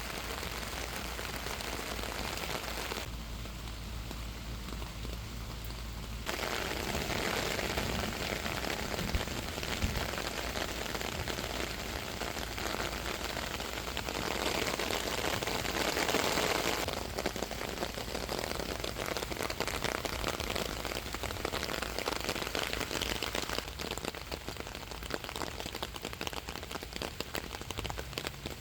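Heavy rain falling, a dense, steady hiss whose strength jumps up and down suddenly a few times.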